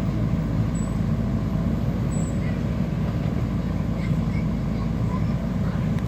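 Diesel engine of a JCB 4DX backhoe loader running steadily as the backhoe arm digs soil and lifts a full bucket.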